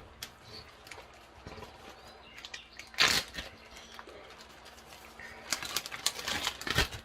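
Plastic bag rustling and crinkling as marinated pork strips are bagged: one loud rustle about three seconds in, then a run of crinkles near the end.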